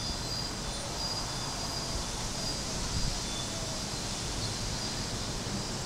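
Steady outdoor storm ambience: a low rush of wind with faint, short high-pitched chirps repeating every second or so.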